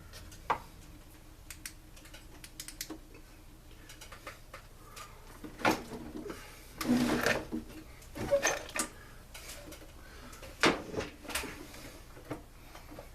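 Intermittent clicks, clinks and knocks of hand tools and metal parts being handled during the teardown of a backpack blower, with a few louder clattering knocks around the middle.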